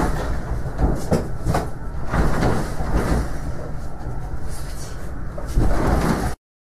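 Continuous low rumbling with rattling and repeated knocks, which cuts off abruptly near the end.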